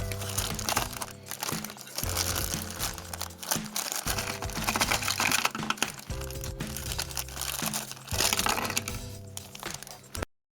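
Background music with chords changing about every two seconds, over the crinkling and crackling of toy packaging being handled. The sound cuts out near the end.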